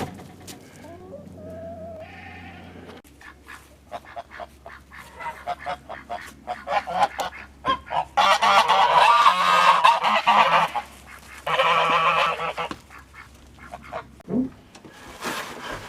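Domestic geese honking in two loud bouts of calling, the first about 8 seconds in and a shorter one a little later, after a run of short clicks and taps.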